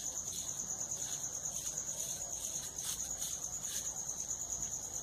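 A steady, high-pitched pulsing trill runs throughout in the background. Under it come faint, soft scratches of a plastic nail brush being stroked over a ball of cold-porcelain modelling clay to texture it.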